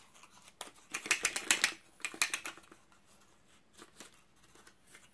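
Small sharp clicks and rattles of eyeshadow packaging being handled as the pots are taken out, in a quick run about a second in and a shorter burst just after two seconds.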